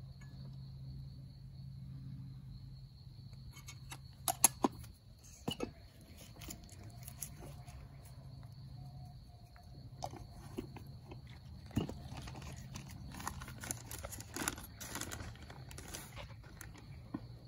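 Crickets chirping steadily at one high pitch. Scattered sharp knocks and clatters come over it, loudest a couple of clicks about four seconds in and a run of clattering from about twelve to fifteen seconds.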